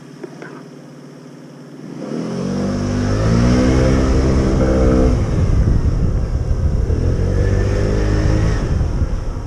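Motorcycle engine pulling away from a near-idle: the revs climb for about three seconds, drop at a gear change, climb again and ease off near the end, with rushing wind from the ride over it.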